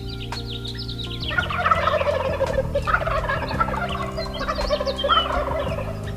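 Wild turkey gobblers gobbling: three rapid, rattling gobbles, about a second and a half apart, partly overlapping as more than one bird calls.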